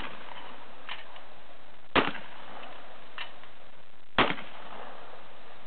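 Shotgun shots fired in a string, two loud cracks about two seconds apart. Fainter sharp knocks fall between them.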